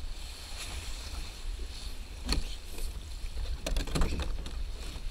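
The plastic hull of a Cobra Tandem sit-on-top kayak scrapes and knocks against boulders as it is hauled up over rocks. There is a sharp knock about two seconds in and a quick cluster of knocks near four seconds, over a steady low rumble.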